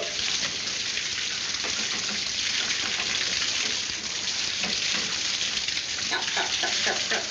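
Water hissing and spraying under pressure from a broken water pipe, a steady hiss throughout.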